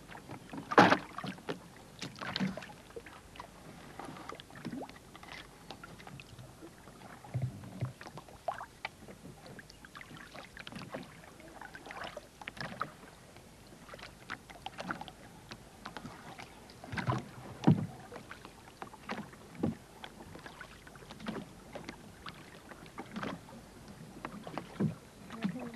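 Irregular knocks and clatter of oars and gear against the hull of a wooden rowboat as a fishing net is handled from it, the loudest knock about a second in.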